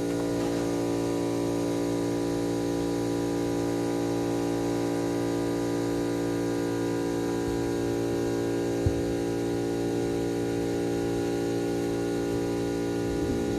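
Steady electrical hum, a constant low drone with many overtones, with a single light knock about nine seconds in.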